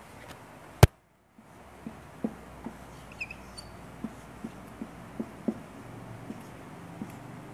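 Marker writing on a whiteboard: a run of short, quiet strokes, about two a second, after one sharp click about a second in.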